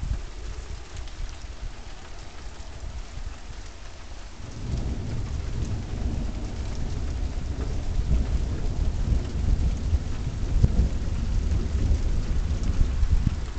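Steady rain, then a long roll of thunder that begins about four and a half seconds in and keeps rumbling, swelling and fading, to the end.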